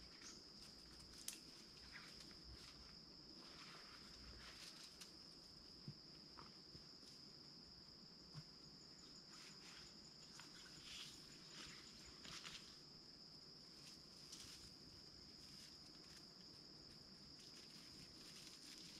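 Faint, steady high-pitched insect trill of crickets or cicadas in the woods, with a few soft rustles and ticks.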